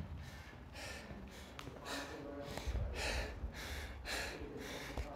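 A person breathing hard in quick, even breaths, about two a second, close to the microphone: out of breath after a hard workout. A brief low rumble of the phone being handled about three seconds in.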